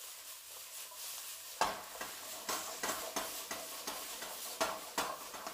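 Spatula stirring and scraping sliced bitter gourd, onion and tomato in a frying pan, over a faint sizzle. The scraping strokes begin about a second and a half in and come about every half second.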